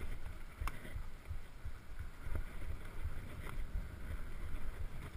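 Wind buffeting the microphone over the rumble of a Surly Krampus mountain bike's tyres rolling down sandy dirt singletrack, with a few sharp rattles from the bike over bumps.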